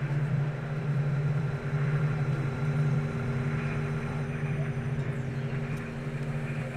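A steady low drone, with a few fainter held tones above it and no breaks, from the film's sound-design track.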